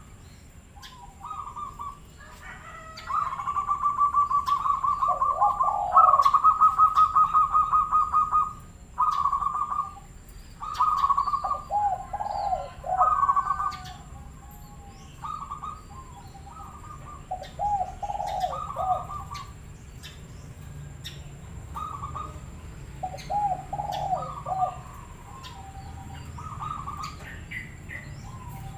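Local zebra dove (perkutut) cooing in repeated phrases of rapid trilled notes with lower rolling coos. The longest and loudest trills come a few seconds in, then shorter phrases at intervals. This is the kind of song used as a lure (pancingan) to set other zebra doves singing.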